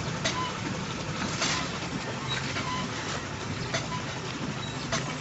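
Homemade rotary steam engine running as an air blower: a steady low hum with irregular sharp clicks.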